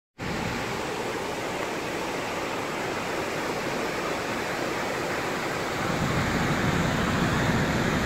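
Wide waterfall pouring over a long rock ledge into a river: a steady rush of falling water, growing a little louder about six seconds in.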